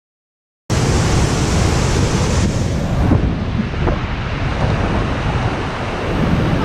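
Waterfall rushing: a loud, steady wash of falling water that cuts in abruptly under a second in, after dead silence.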